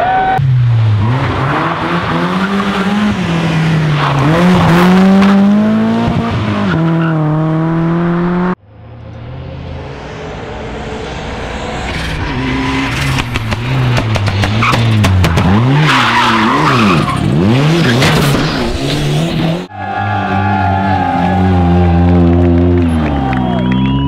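Rally car engines at full throttle, revving up and dropping back again and again through gear changes. The sound cuts abruptly twice between clips, and one of them is a turbocharged Ford Sierra Cosworth.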